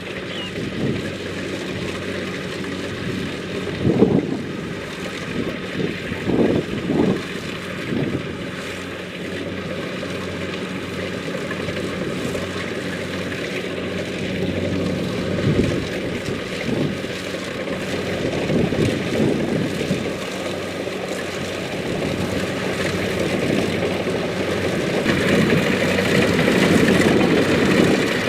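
Kubota DC-70 Plus combine harvester running steadily while harvesting rice. The machine's noise grows louder over the last few seconds.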